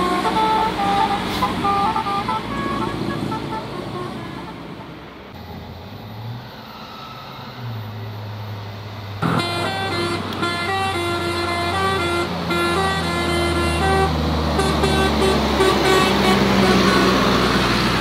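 Indonesian tour buses' telolet Basuri multi-tone horns playing stepping melodies: one tune fades out over the first few seconds, leaving a bus engine running low, then a second bus's horn starts suddenly about nine seconds in and plays another tune. Engine and road noise swell near the end as the bus comes close.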